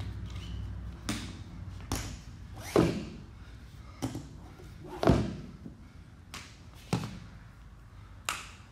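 Rubber bumper plates knocking and thudding as they are handled and slid onto a barbell sleeve: about seven separate knocks, the loudest about three and five seconds in.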